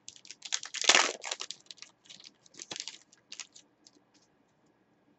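A trading-card pack wrapper crinkling as it is torn open and the cards are handled, with quick clicks and rustles. The crinkling is loudest about a second in, then thins to a few scattered clicks.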